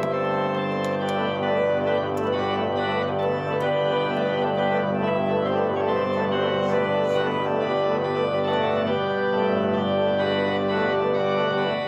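Organ postlude playing after the benediction: full, sustained chords with moving notes above them, held at a steady level.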